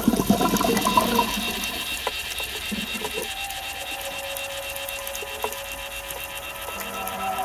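Underwater sound picked up by a diver's camera. Scuba exhaust bubbles gurgle during the first second or so, then a steady mechanical whine of several held tones goes on underneath.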